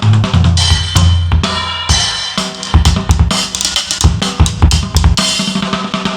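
Acoustic drum kit played: rapid snare and tom strokes over bass drum hits, with cymbal crashes about half a second in, near two seconds and near five seconds.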